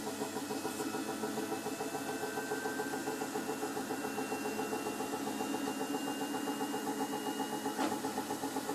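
Samsung WF1802HEC front-loading washing machine spinning with an empty drum, with a fast, regular knocking as the drum turns; the knock is the fault being shown. A faint whine rises slowly in pitch, and a single sharp click sounds near the end.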